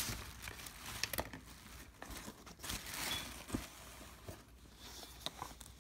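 Rustling and crinkling of an art print and its packaging being handled and laid down, with scattered small clicks.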